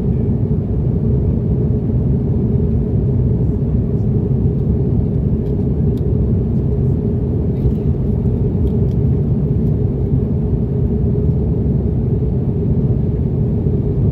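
Steady low drone inside an Airbus A330-300 airliner's cabin in flight: engine and airflow noise heard through the fuselage.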